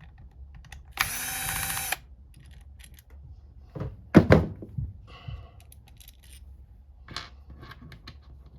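Small cordless screwdriver whirring for about a second as it backs out one of the switch housing's top-cover screws. Sharp clacks follow, the loudest a little past four seconds, then lighter clicks of small parts being handled.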